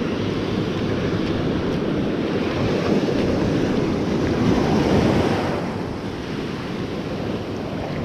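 Ocean surf washing on a beach, with wind buffeting the microphone; the wash swells to its loudest about five seconds in, then eases.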